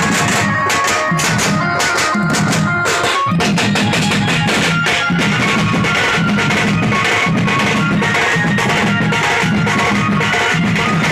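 Band party playing loud Sambalpuri music led by drums. About three seconds in comes a quick run of drum strokes, then a steady pounding beat under a held melody.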